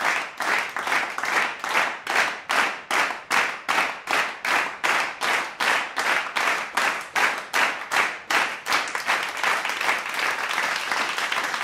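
Hands clapping together in a steady rhythm, about three claps a second, then breaking into continuous applause about nine seconds in.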